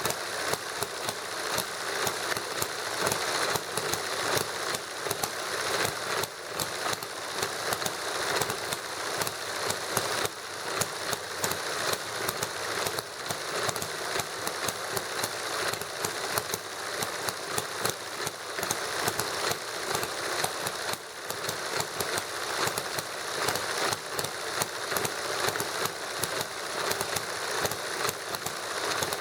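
Small model hit-and-miss gasoline engine running, with louder pops at uneven intervals over a fast mechanical clatter.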